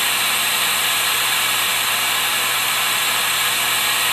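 Hot bonder's vacuum pump running, a steady hiss with a faint low hum under it, as it draws vacuum through the hoses for a vacuum-bagged composite repair.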